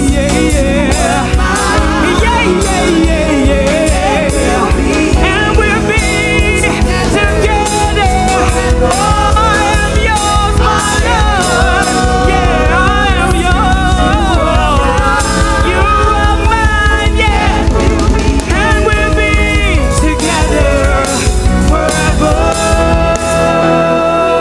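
Recorded live gospel band with singing voices, played back from a multitrack recording and mixed on a digital desk for a virtual soundcheck. A sung melody over bass and drums continues throughout.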